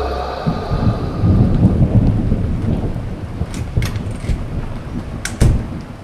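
A low, rumbling noise that slowly fades, with a few sharp clicks in the second half, the loudest about five and a half seconds in.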